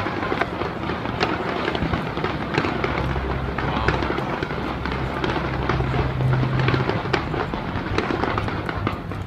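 Fireworks going off in a dense, continuous run of crackles and sharp pops, many reports overlapping with no break.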